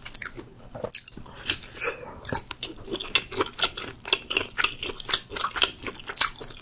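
Close-miked chewing of a mouthful of grilled sausage: wet, smacking mouth sounds with many small clicks, going on without a break.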